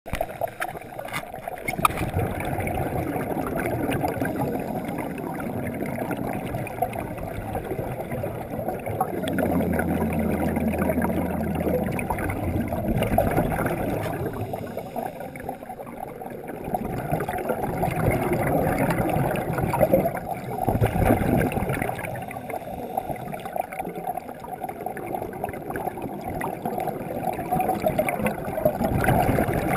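Underwater recording of a scuba diver's regulator breathing, with exhaled air bubbling out in swells every few seconds.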